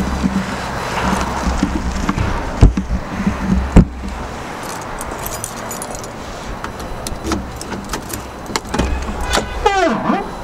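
Car keys jangling and clicking as the car door is handled. Before the jangling there are two sharp thumps a little over a second apart.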